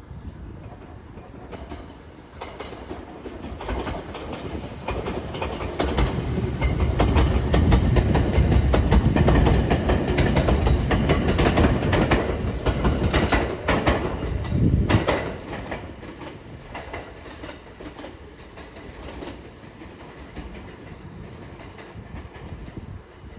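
A train passing close by: a rumble that builds up, wheels clacking over rail joints, loudest for several seconds in the middle and then dying away.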